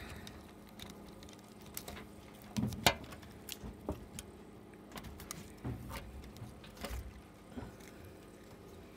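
Scattered light clicks and small metallic taps from handling a dismantled camcorder's metal chassis and screws, over a steady faint hum. The sharpest tap comes about three seconds in.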